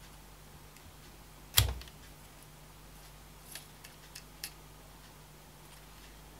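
Handling noise from a small plastic projector cooling fan and its wires. There is one sharp click about a second and a half in, then four or five faint clicks and taps a couple of seconds later.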